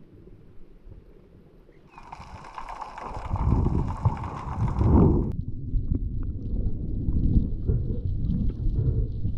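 Underwater sound heard through an action-camera housing: low rumbling and churning of water as a freediver swims and kicks his fins. A steady high whine joins about two seconds in and cuts off abruptly a little past the middle.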